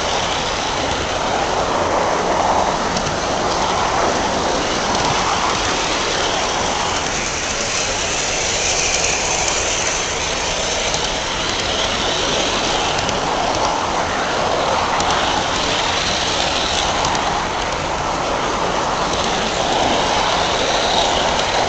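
Large-scale garden model train rolling along its track with the camera riding on board: a steady rattle of wheels on rails.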